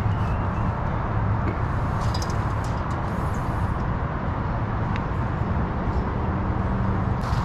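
Steady low background rumble that holds an even level, with no distinct events.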